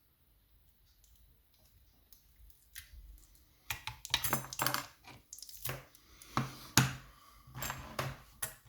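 Small metal clinks and clicks of a lever mortice lock's parts being handled and taken apart. It is quiet at first, then a run of sharp clinks starts a few seconds in, the loudest of them near the end.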